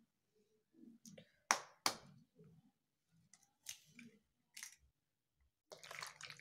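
Eggs being cracked by hand over a steel plate of marinated chicken: two sharp clicks of shell about a second and a half in, then a few fainter clicks and soft wet handling sounds.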